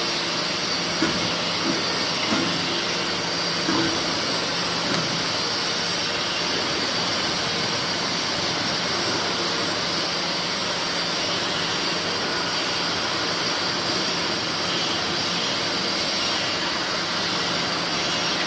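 315-ton four-column hydraulic press for salt running: the steady hiss and hum of its pump unit, holding an even level. Faint voices come through in the first few seconds.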